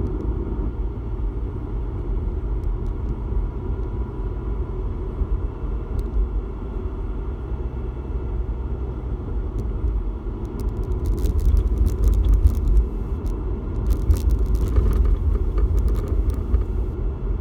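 Inside the cabin of a moving Mk7 Volkswagen GTI: steady low road and engine rumble, with clusters of rattling clicks from the car about eleven seconds in and again around fourteen to sixteen seconds in, the rattle the owner is trying to track down.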